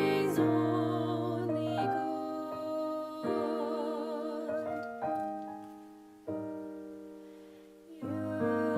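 Slow piano music: sustained chords that fade away and are struck again every second or two, under a melody held with vibrato.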